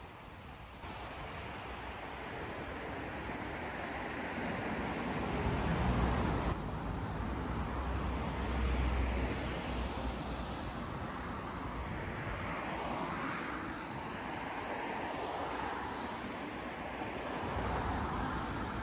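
City street traffic: a steady wash of car engines and tyre noise, swelling as vehicles pass close by, loudest about a third of the way in and again near the end.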